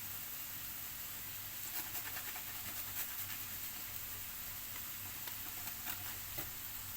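A garlic clove being grated into a pan: a run of light, irregular scraping strokes from about two seconds in until near the end, over the soft steady sizzle of chopped onion cooking gently in oil.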